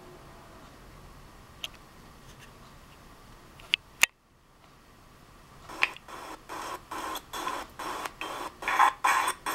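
Faint steady hum with a few sharp mouse clicks, two in quick succession about four seconds in. From about six seconds, a regular run of footsteps, about two a second, from a handheld walkthrough video playing through computer speakers.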